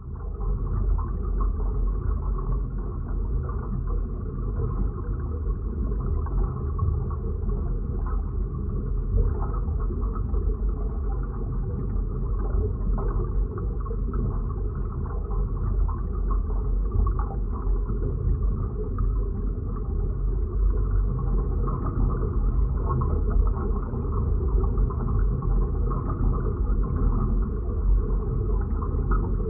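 Designed science-fiction ambience from an underwater-and-space sound-effects library: a steady, dense low rumble with a hollow, muffled texture and nothing high-pitched in it, of the kind used for a submarine or spacecraft interior. It begins suddenly right at the start.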